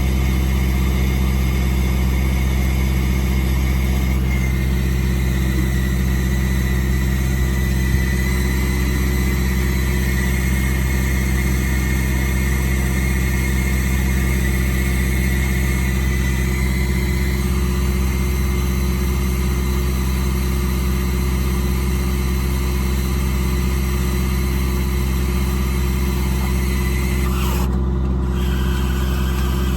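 Ford F550's 6.7 Power Stroke V8 diesel running steadily at idle, an even low drone, with a faint high whine over roughly the first half.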